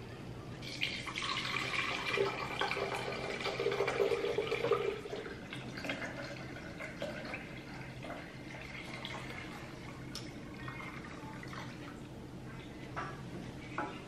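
Liquid being poured into a glass pitcher: a splashing pour for a few seconds, then a softer trickle, with a few light clicks near the end, over a faint low hum.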